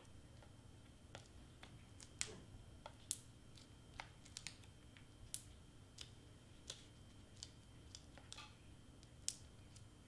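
Faint, scattered small clicks and taps of fingers and nails handling foam tape squares and paper cardstock, peeling the squares off their backing and pressing them onto a cardstock piece on a cutting mat.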